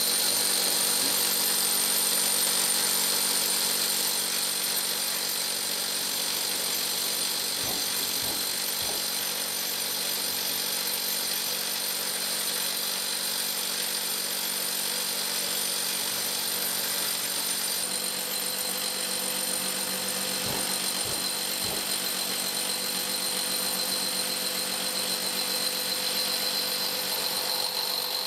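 Milwaukee rotary hammer drilling a tie-down hole into a concrete foundation, with a dust-extraction vacuum drawing the drilling dust through a shroud and hose. A steady mix of drilling and high vacuum whine, with a couple of faint knocks.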